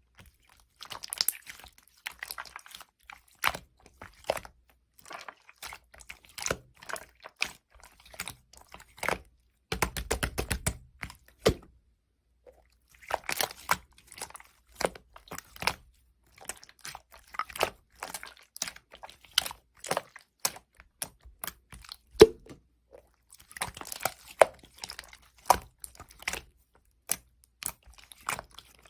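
Slime being squished and pressed by hand, giving irregular crackling clicks and small pops, with short dense runs of crackles between brief pauses.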